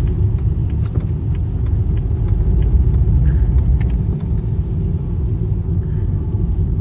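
Steady low rumble of engine and tyres heard from inside a BMW 3 Series (E90) saloon driving on a wet road.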